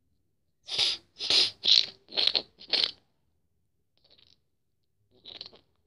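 A quick run of five short crunching, rustling sounds in the first half, then a few fainter ones near the end.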